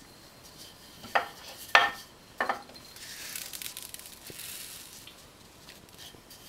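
Candy sprinkles being scattered by hand onto cookie dough on a metal baking tray, giving a soft, high hiss for a couple of seconds in the middle. Three short, sharp sounds come in the first half, from the bowls and tray being handled.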